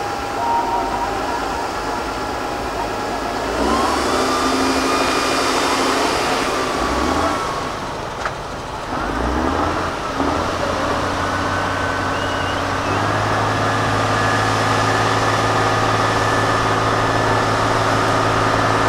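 Tatra 8x8 trial truck's diesel engine revving hard, falling away for a moment with a single sharp click, then running at steady high revs that step up once more. For the second half the truck is lying on its side with its engine still running.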